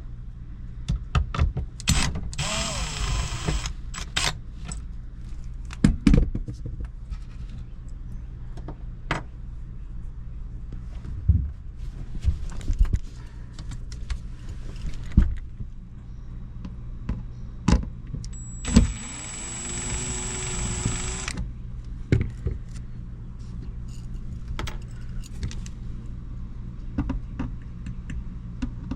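Cordless drill-driver spinning up and running in two bursts, about two seconds in and again for a few seconds past the halfway point, backing out the screws of an RV underbelly panel. Scattered clicks and knocks of handling come in between, over a steady low hum.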